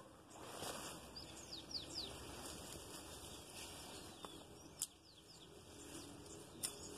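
Birds chirping: quick, high, falling notes in small clusters, with two sharp clicks, one about two-thirds of the way in and one near the end.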